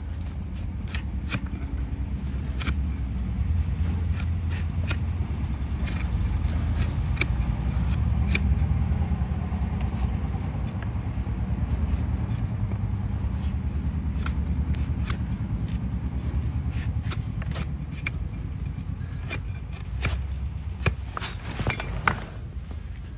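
Broad hoof-trimming blade shaving and paring horn off a donkey's hoof, a long run of sharp, crisp cutting scrapes and snaps, with a couple of louder knocks near the end. A steady low rumble sits underneath.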